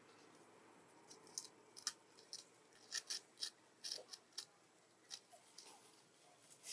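An irregular run of a dozen or so short, sharp, high clicks and ticks, starting about a second in and thinning out after about five seconds.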